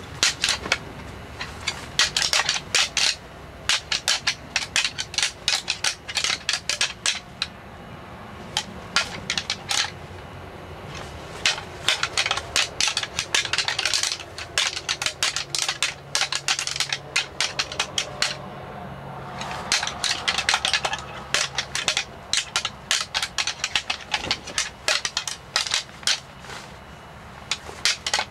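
Deer antlers being rattled together to call in a buck: quick clacking and ticking in bursts of a second or two, with short pauses between sequences.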